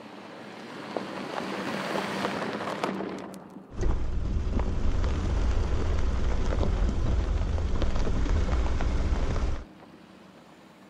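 Tyres of a Porsche Cayenne Turbo crunching over loose gravel on a dirt track, growing louder as the SUV approaches. About four seconds in it cuts to a much louder, close-up deep rumble and crackle of a tyre rolling over gravel, which stops abruptly near the end, leaving a faint quieter rolling sound.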